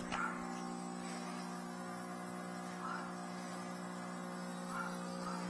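Steady electrical hum from running equipment, with a few faint short sounds over it.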